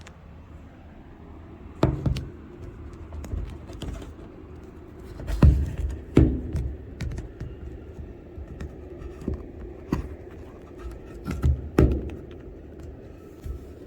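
Handling noises: scattered knocks and scratches of hard objects being moved about, the loudest about 2, 5½ and 12 seconds in.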